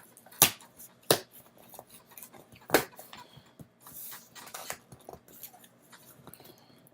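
A cardboard shipping box being opened by hand: three sharp clicks or knocks in the first three seconds, then scraping and tearing of tape and cardboard.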